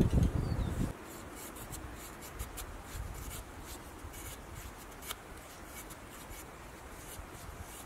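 A knife blade shaving thin curls down a split wooden stick to make a feather stick: a run of short, irregular scraping strokes. Low thumps of handling in the first second.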